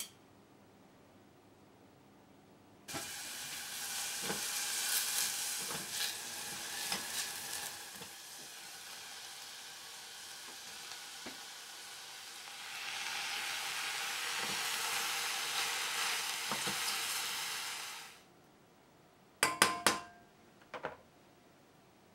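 Sliced onion and mushrooms sizzling as they sauté in oil in a stainless steel pot, with the clatter of stirring. The sizzle starts suddenly about three seconds in, grows louder around the middle and cuts off sharply; a few ringing metal clinks of utensils follow near the end.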